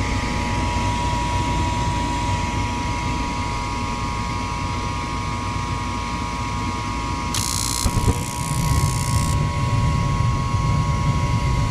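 Gas furnace's draft inducer motor running with a steady whine, then about seven seconds in the spark igniter sparks for about two seconds and the burners light with a soft thump, followed by a steady low burner rumble.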